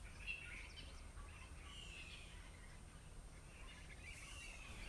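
A few faint, high bird calls, some falling slightly in pitch, scattered over a low, steady background rumble.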